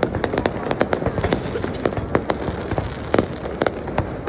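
Fireworks going off in a dense, irregular series of sharp cracks and bangs over a continuous rumble.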